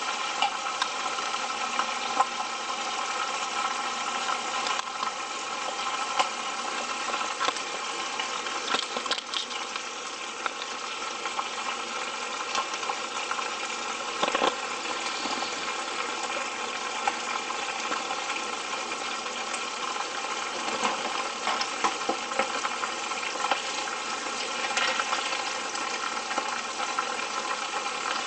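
Chicken pieces frying in hot oil in a frying pan: a steady sizzle full of small crackles and pops. A steady hum runs underneath.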